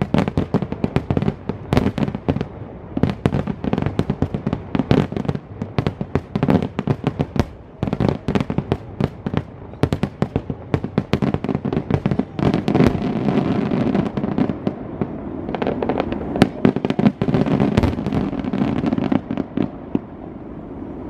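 Fireworks display: a rapid, dense barrage of crackling bangs, many per second, over a continuous rumble of bursts that swells in the second half and eases near the end.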